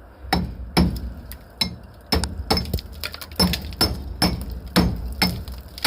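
Hammer striking cracked precast concrete about twice a second, knocking off loose, spalled pieces; the concrete was cracked by rusting steel rebar inside it.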